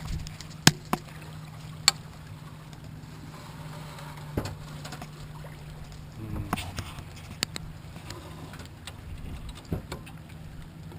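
A boat at rest on the water: about seven sharp knocks scattered irregularly, typical of small waves slapping the hull, over a steady low hum.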